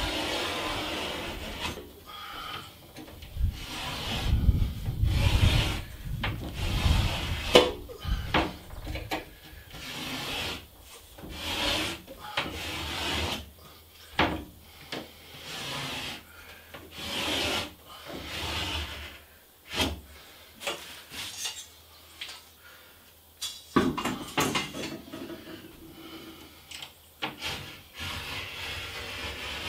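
Utility knife blade scoring Hardie cement board along a metal straightedge: a long series of irregular scraping strokes as the blade is drawn through the same groove again and again to deepen it before the board is snapped.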